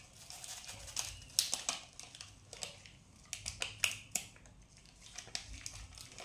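Sticker sheet crinkling and rustling in small hands as stickers are peeled off it, in irregular little rustles and clicks.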